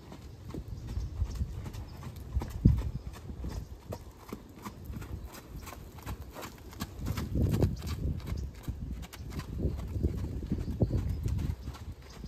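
A mare's hooves striking the dirt footing of a round pen as she goes around on the lunge line, in a steady run of footfalls. They are loudest in stretches about seven and ten seconds in, with one sharper strike near three seconds.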